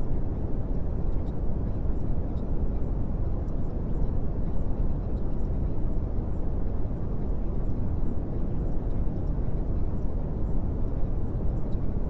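Steady low rumbling noise, even and without tone or rhythm, with faint scattered crackles high up.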